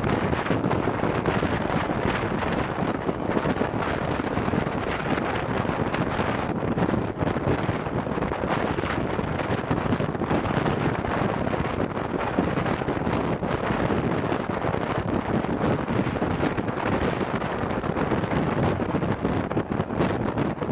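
Wind rushing and buffeting over the microphone at the open door of a moving passenger coach, over the steady running noise of the train on the rails.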